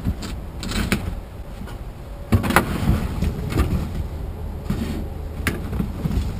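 Irregular knocks and clanks of hands and tools working on a rusted-out car body, the loudest cluster a little past two seconds in, over a steady low rumble.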